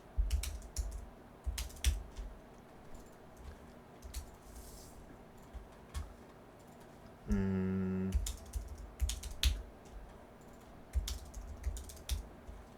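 Computer keyboard typing and clicking in irregular bursts, with low desk thumps under the keystrokes. A short steady tone lasting under a second sounds about seven and a half seconds in.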